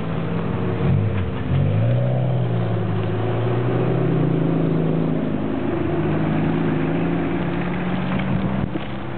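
Several cars, Opels among them, driving close past one after another, their engines accelerating. About two seconds in, one engine note rises in pitch, then holds steady for several seconds.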